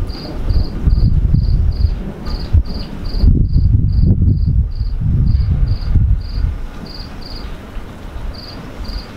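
A cricket chirping steadily, about two to three short high chirps a second. Under it runs a loud, low rumble that swells and fades unevenly.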